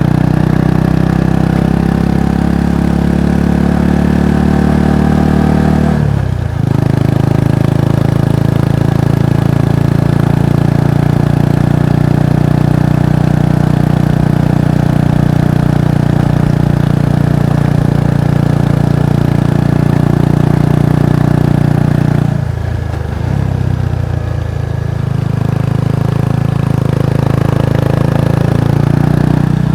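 Kawasaki Estrella's single-cylinder four-stroke engine and exhaust running steadily under way. The revs dip briefly about six seconds in, fall off for a couple of seconds about three quarters of the way through, then pick up again.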